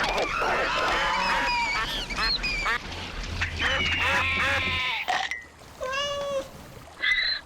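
Cartoon animal-call sound effects: for about five seconds a busy overlap of short squawks and chirps that bend in pitch, then a few separate calls.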